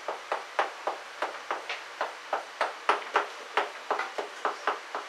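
Chalk tapping and scraping on a blackboard as characters are written by hand: a quick run of short, sharp taps, about three or four a second.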